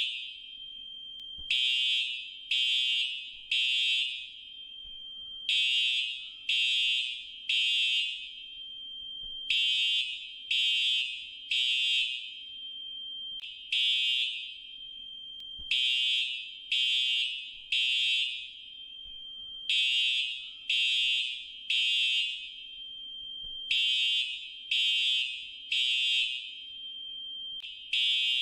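Fire alarm sounding the temporal-three evacuation signal: three short, high-pitched beeps, then a pause, repeating about every four seconds.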